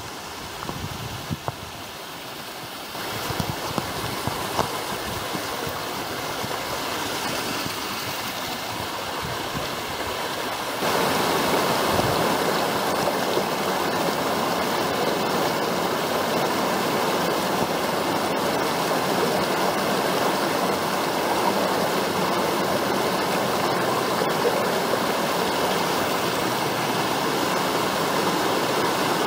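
Mountain stream rushing and splashing over rocks and small waterfalls, a steady rush that grows louder in two steps, about three seconds in and about eleven seconds in.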